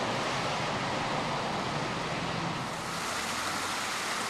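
Steady rushing wash of water as a van ploughs through street floodwater, changing about three seconds in to the hiss of rainwater pouring down.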